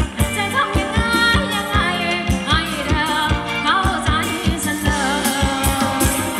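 Live band playing Thai ram wong dance music: a singer with a wavering, ornamented melody over a fast, steady drum beat.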